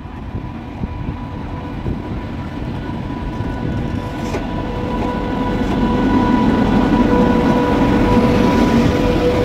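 WAG-9H three-phase electric locomotive rolling slowly past at close range: a low rumble with a steady electric whine, growing louder as it draws near.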